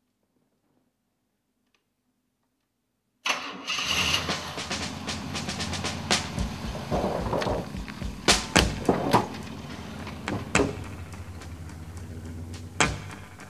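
A 1960s Cadillac's V8 engine starts suddenly about three seconds in and runs steadily. Several sharp knocks sound over it.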